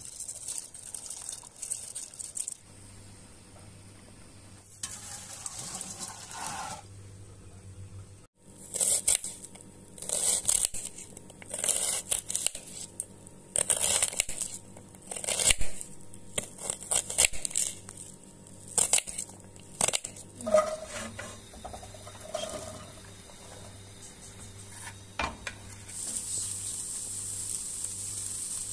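Rice poured into a pot of boiling water, then a knife dicing onion on a cutting board in a long run of irregular crisp strokes. Near the end comes a steady sizzle of diced onion frying in oil.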